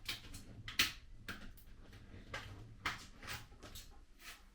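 A series of short clicks and knocks, the loudest about a second in, from barbecue parts and fittings being handled and fitted during assembly.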